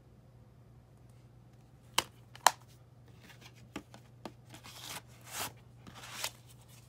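Plastic Blu-ray case snapping shut with two sharp clicks, then the case sliding into its cardboard slipcover with several rough scraping, rustling strokes.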